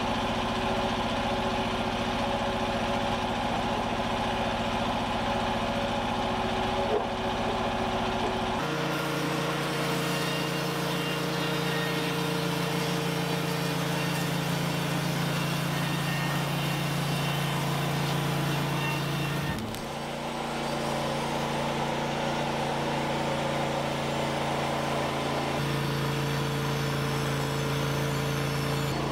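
Gasoline engine of a Norwood LumberMate LM29 portable band sawmill running steadily, its note shifting abruptly a few times.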